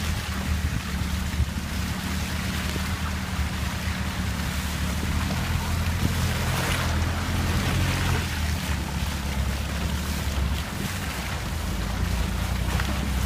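Vehicle engine running at a steady low drone while its tyres churn and splash through wet, rutted mud, with wind buffeting the microphone.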